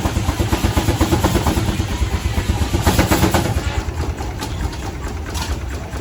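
1912 Case 40 hp steam traction engine running under its governor with a fast, even beat, growing somewhat quieter a little past halfway.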